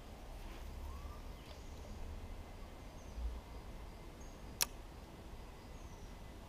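Quiet creek-bank ambience with a low rumble, a few faint, short, high bird chirps, and one sharp click about four and a half seconds in.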